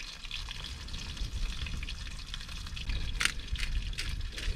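Breaded fish fillets frying in olive oil in a pan: a steady sizzle, with wind rumbling on the microphone. A few short sharp clicks come about three seconds in.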